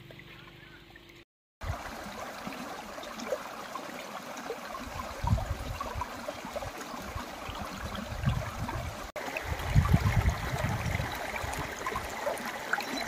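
Shallow rocky stream running over stones: a steady rush and trickle of water, with bouts of low rumble now and then.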